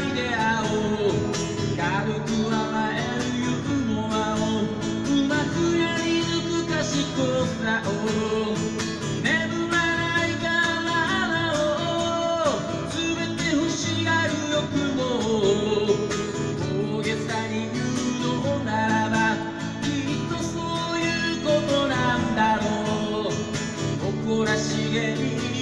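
Acoustic guitar played live with a man singing along, amplified through a PA speaker, in a country-folk style.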